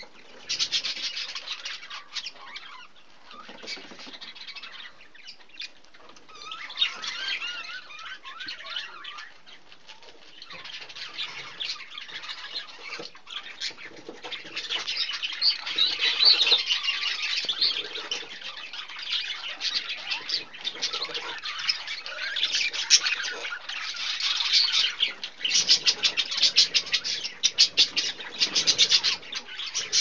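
Budgerigars chattering while one feeds the other beak to beak, with wavering warbles and fast runs of short squeaky chirps that grow busier and louder in the second half.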